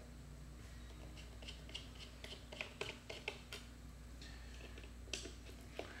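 Faint, scattered clicks and scrapes of a hand screwdriver loosening the captive screws in an iMac G4's metal base plate.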